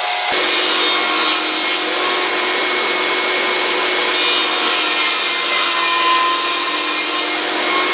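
Power saw running steadily as it cuts through wood, a steady motor tone under the cutting noise.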